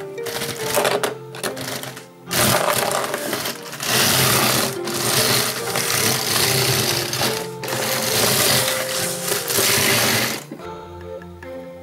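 Background music with a rapid, dense mechanical rattling over it that stops and starts several times and cuts off about ten and a half seconds in, leaving only the music.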